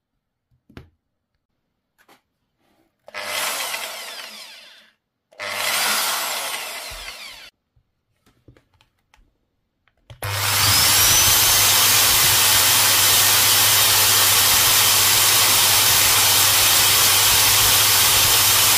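Electric drill run in two short bursts that fade away, then an electric drill starting about ten seconds in, its high whine rising as it spins up, and running steadily at full speed with a low hum underneath.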